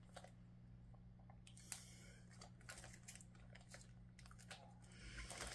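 Faint chewing of a gummy candy, with a few soft, scattered clicks.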